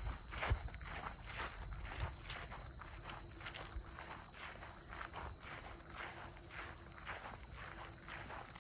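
Crickets trilling steadily in a high, unbroken chorus, with crunching footsteps at an easy walking pace.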